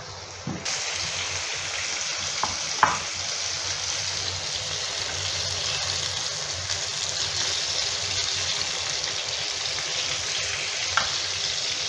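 Marinated chicken pieces sizzling as they fry in hot oil. The steady sizzle jumps up a little under a second in as the chicken goes into the oil, and the pieces are stirred with a wooden spatula, with a few knocks against the pan.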